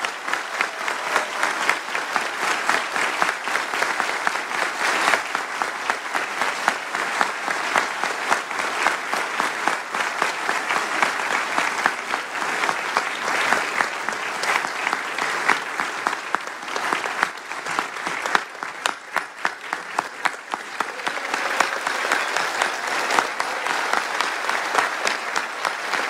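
Audience applauding: dense, steady clapping from many hands that thins a little about two-thirds of the way through, then fills back in.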